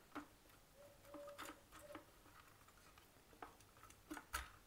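Near silence with a few faint clicks and taps from a wire being handled against a plastic switchboard.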